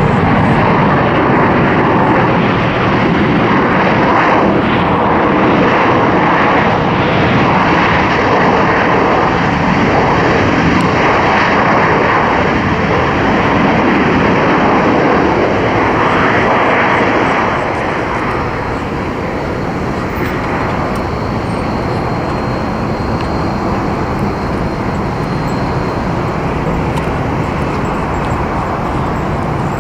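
Jet airliner engines, loud and steady, with a dense rushing roar that eases off a little about halfway through.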